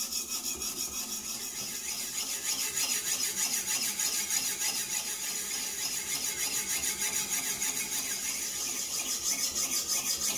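Knife blade being ground back and forth on a coarse 80-grit diamond sharpening stone in a guided sharpening system: a steady, rhythmic rasp at about four strokes a second. The coarse stone is cutting a new edge bevel on a reprofiled blade.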